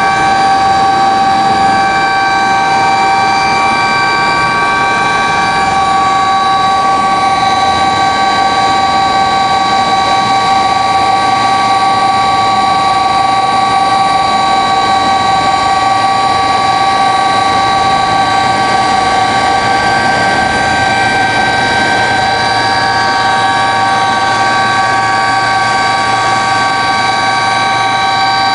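Helicopter turbine and rotor noise, a loud steady drone with several high whining tones held at constant pitch.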